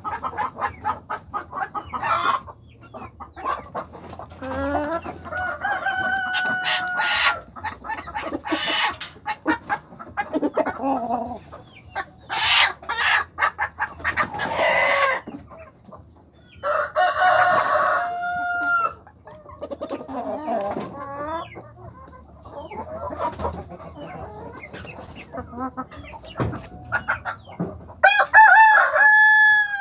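A flock of chickens clucking and calling: a steady run of short clucks with a few long, drawn-out calls, the loudest of them near the end.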